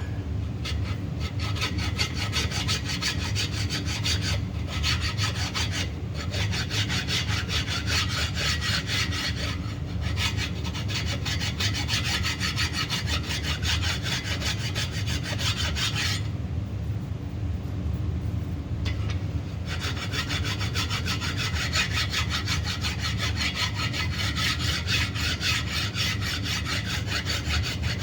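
Large hand file rasping in steady back-and-forth strokes across a pin on a small-block Chevy 350's cast-iron water pump mounting pad, filing it down flush with the surface. The strokes pause for about three seconds a little past halfway, then resume.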